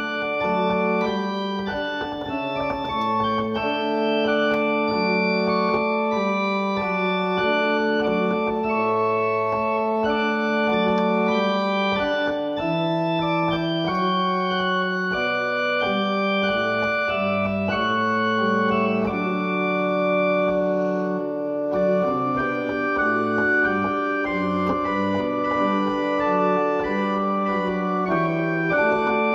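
Two-manual organ playing a hymn in sustained full chords, each chord held steady, then moving to the next, with a brief break between phrases about two-thirds of the way through.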